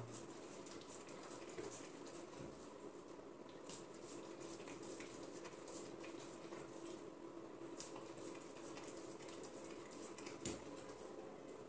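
Saint Bernard licking ice cream from a small cup held to its mouth: faint wet lapping and smacking clicks over a low steady hum, with one sharper click about ten and a half seconds in.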